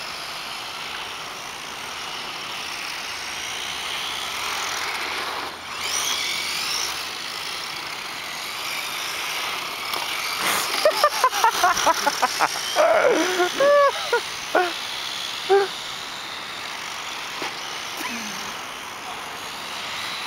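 1:10 scale electric RC cars driving around an asphalt track, their motors whining faintly and rising and falling in pitch over steady outdoor noise. A little past halfway, a short cluster of quick clicks and brief high-pitched blips stands out as the loudest part.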